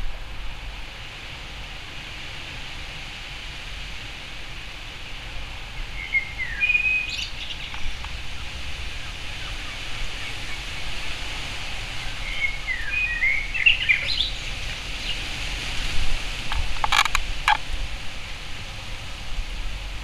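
Male Eurasian blackbird giving two short warbling song phrases, about six seconds in and again about twelve seconds in, over a steady outdoor hiss and low rumble. A quick run of sharp clicks comes near the end.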